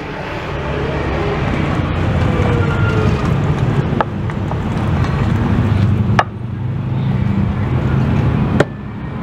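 Wooden pestle grinding peanut sauce on a ceramic plate, scraping with a few sharp knocks against the plate, over a steady low rumble like street traffic.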